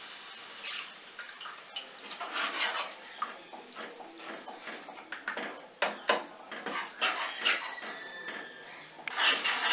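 Steel spoon stirring and scraping through masala in a non-stick kadai, with a light sizzle as tamarind pulp is mixed into the hot fried spices. The spoon clinks against the pan repeatedly, most thickly between about six and eight seconds in.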